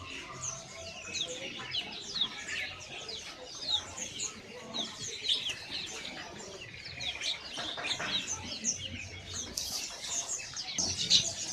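Many small caged songbirds chirping and twittering together, a dense stream of short high chirps. A brief rustling burst comes about ten seconds in.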